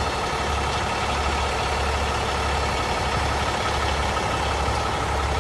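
Truck engine idling: a steady, unchanging low rumble with a constant hum.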